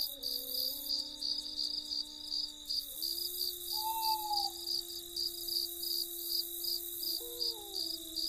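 Crickets chirping in a steady, even rhythm of about two to three pulses a second, with soft sustained low tones underneath that change pitch every few seconds.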